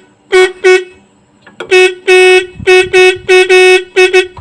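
Freshly serviced Roots electric motorcycle horn sounded in about ten short blasts: two toots, a pause, then a rapid run of bursts, one steady pitch. The tone is clear again after rust was cleaned from inside, which the mechanic judges good but still wanting a little more sharpness from tuning.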